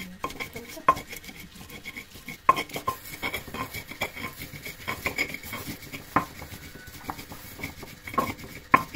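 Cutlery and dishes clinking: irregular sharp clinks of metal on crockery, a few of them louder than the rest.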